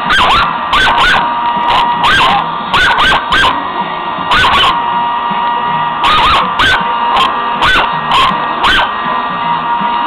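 A dog barking and yipping at a blow dryer it dislikes, about fifteen sharp barks in quick clusters with short pauses between, over a steady high whine.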